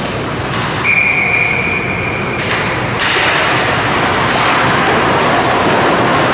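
A whistle blown once, a steady tone of about a second and a half, over the continuous hollow noise of an indoor ice rink. About three seconds in there is a sharp crack, and the rink noise grows louder.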